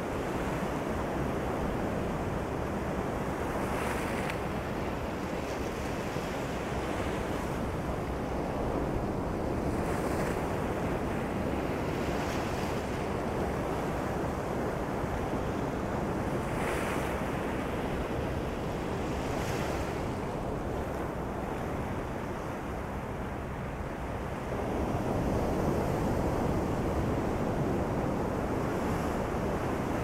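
Ocean waves rolling onto a beach: a continuous wash of surf, with breakers hissing up every few seconds, and the surf grows louder about three-quarters of the way through.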